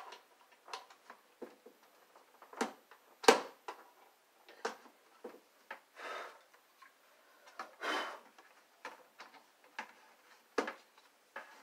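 Scattered clicks, knocks and scrapes of plugs and cords being handled at a plastic surge protector, with a sharper knock about three seconds in and another near the end, and two longer scrapes in between.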